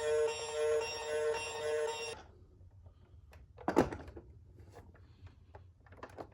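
A bright electronic tune plays and cuts off suddenly about two seconds in. Then come light scattered clicks and taps, with one louder knock a little under four seconds in.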